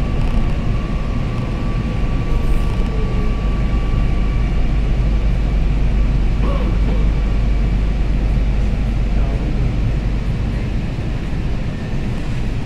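Kochi Metro train heard from inside the coach: a steady rumble of the running train, with a faint steady whine in the first few seconds, as it draws into a station platform and comes to a stop.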